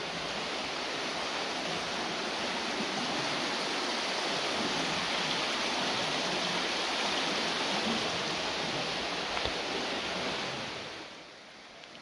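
Steady rush of whitewater churning in the creek below the bridge, which drops away to a much fainter hiss about eleven seconds in.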